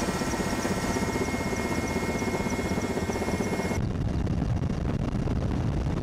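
Military helicopter's turbine whine and rotor beat, steady and loud. About four seconds in the high whine cuts off abruptly, leaving a duller, lower rotor thudding.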